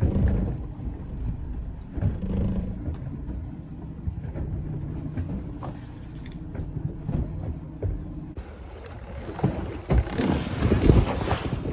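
Boat motor running low under steady rumble and wind on the microphone. About eight seconds in the sound changes abruptly to louder wind buffeting the microphone, with splashes of rough water against the boat.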